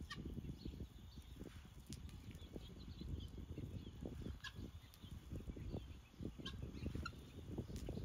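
Helmeted guinea fowl giving short, high chirps now and then while foraging, over a low, irregular rustle.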